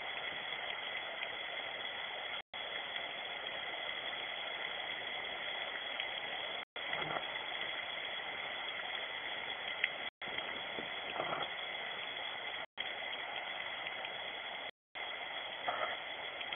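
Steady rain hiss picked up by a security camera's microphone, dull-toned, with a steady high whine underneath. The sound cuts out completely for a moment five times.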